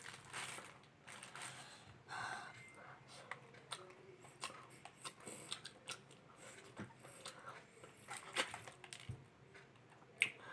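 A spoon or fork scraping and stirring rice and gravy in a takeaway food container, faint irregular clicks and scrapes, with a sharper click near the end.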